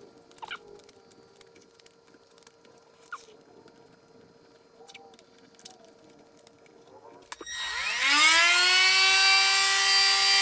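Soft handling of masking tape being pulled from the roll and pressed down, with a few short squeaks. About seven seconds in, a Milwaukee cordless rotary tool with a cutoff wheel starts up: a whine that climbs quickly in pitch, then holds steady at full speed as the wheel is set to a plastic stud.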